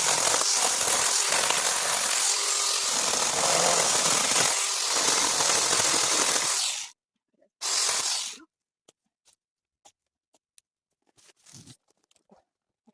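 A handheld power cutting tool runs for about seven seconds while cutting into a bush. It stops, runs again in one short burst about a second later, and then falls quiet apart from small snaps and rustles of branches.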